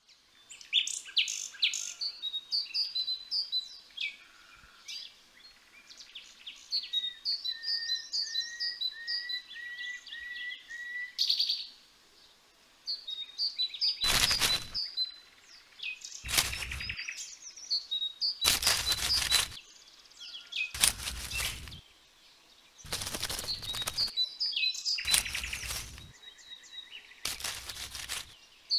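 Songbirds chirping repeatedly in short, high phrases. From about halfway, a loud rushing noise about a second long comes in and repeats roughly every two seconds over the birdsong.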